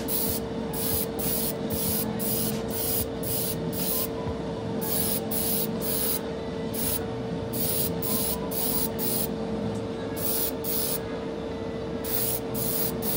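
Airbrush spraying paint in repeated short bursts of hiss as the trigger is worked, often one or two a second with short pauses, over a steady hum.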